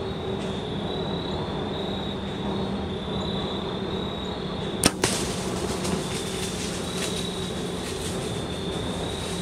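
A bow shot about five seconds in: a sharp crack of the released string, followed a split second later by a second smack as the arrow strikes the deer. A steady drone of insects runs underneath.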